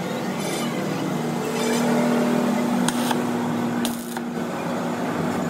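Stick (arc) welding on a cracked truck front axle beam: the arc crackles over a steady hum that breaks off about four seconds in, with a couple of sharp clicks.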